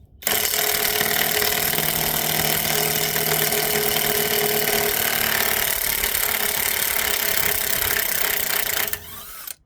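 1/2-inch impact wrench hammering steadily on a 3/4-inch socket through a 1/2-to-3/4-inch impact adapter, running for about nine seconds and then stopping.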